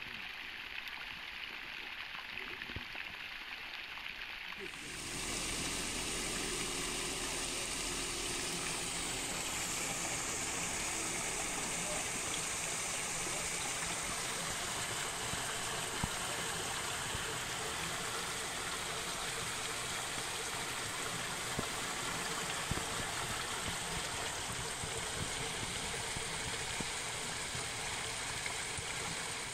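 Steady rush of water flowing through a drain grate, starting about five seconds in after a quieter stretch.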